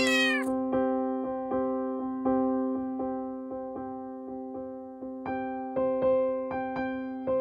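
Background music: a soft electric piano playing a gentle run of repeated notes over a held chord. A short falling chime sound effect comes at the very start.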